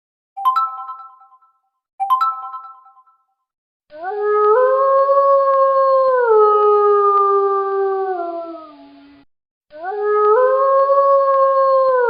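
Message notification tones: two short bell-like chimes about a second and a half apart, each dying away quickly, then a long howl-like call played twice, each rising at first and then stepping down in pitch over about five seconds.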